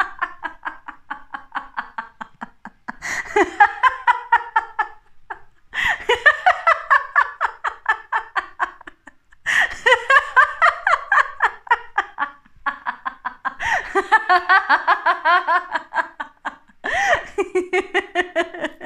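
A woman laughing in about five long bouts, each a rapid run of ha-ha pulses, with short breaths between. It is laughter without any cause, laughing alone as practised in laughter yoga.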